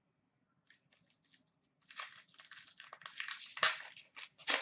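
Foil wrapper of a 2015-16 Upper Deck Ice hockey card pack crinkling as it is torn open: a few faint crackles, then dense crackling from about two seconds in, with the sharpest crackles near the end.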